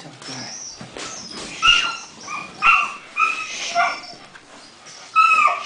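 Puppy whining and yipping in a string of short, high-pitched cries, the loudest about a second and a half in, near three seconds, and again near the end.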